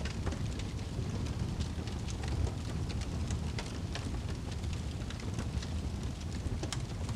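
Wood fire burning in a fireplace: a steady low rumble of the flames with frequent sharp crackles and pops from the logs.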